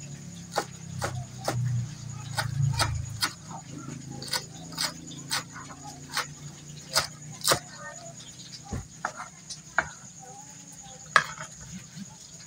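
Kitchen knife chopping green onions on a plastic cutting board: sharp chops at about two a second, growing sparser in the last few seconds, with one sharp chop near the end.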